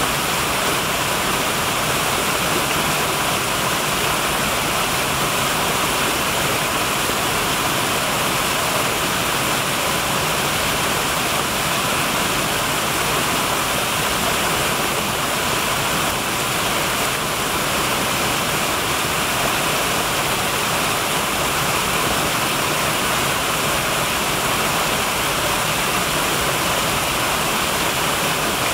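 Small woodland waterfall, two cascades spilling over mossy rocks into a pool: a steady rush of falling water that does not change.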